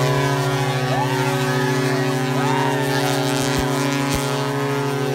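Ship's horn sounding one long, steady blast, marking the equator crossing, with cheering voices over it.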